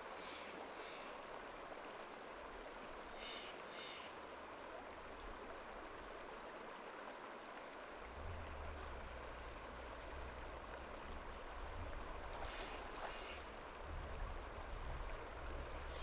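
Shallow river flowing over rocks, a faint steady rush of water. A few brief high chirps sound about three seconds in and again near the end, and a low rumble joins from about halfway.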